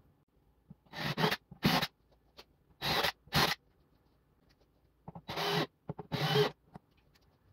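Red cordless drill driving screws into pine framing boards in short bursts, heard as three quick pairs of runs with silent gaps between.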